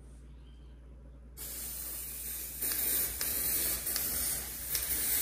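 Aerosol hair-colour spray can spraying onto hair: a steady hiss that starts suddenly about a second in and grows louder a second later.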